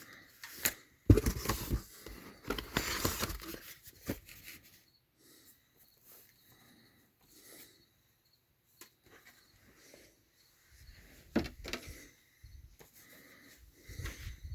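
A shipping package being handled and opened by hand: rustling and tearing of packaging in bursts, with scattered clicks and knocks.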